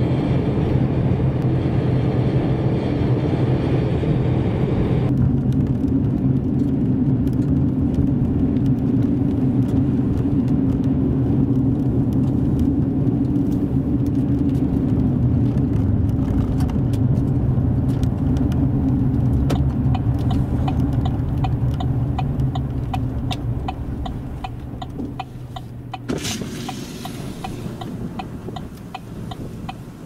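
Road and engine rumble of a car driving, heard inside the cabin. The tone changes abruptly about five seconds in. Later a turn signal ticks about twice a second while the rumble fades as the car slows, and a hiss comes in near the end.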